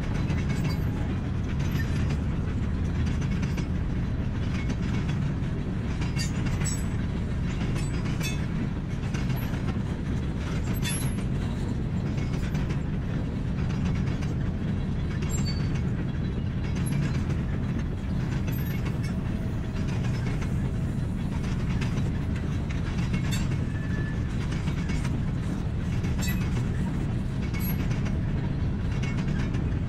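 Freight cars rolling slowly past on yard track: a steady low rumble of steel wheels on rail with scattered clicks and a few brief faint squeals.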